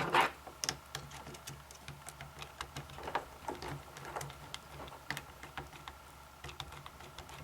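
Small irregular clicks and taps of a screwdriver turning screws out of an airsoft V3 gearbox shell, with a louder knock at the start.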